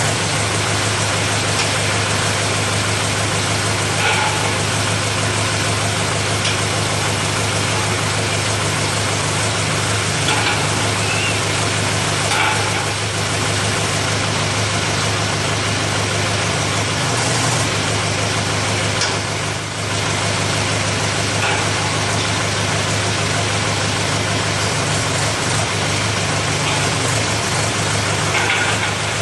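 Small tractor engine running steadily at idle while its mounted reversible furrow plough is turned over.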